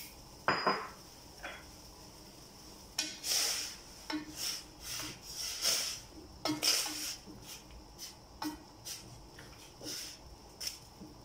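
Wooden utensil stirring in a stainless steel cooking pot, scraping and knocking against the sides and bottom about once or twice a second. A single sharp clank comes about half a second in.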